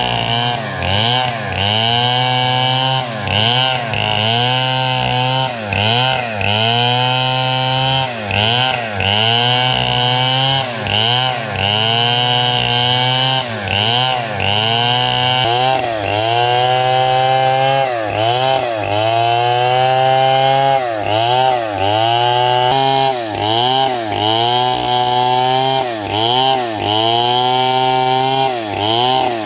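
Stihl chainsaw working through small 6×6 cm wood. The engine pitch dips as the chain bites and revs back up as it clears, about once a second.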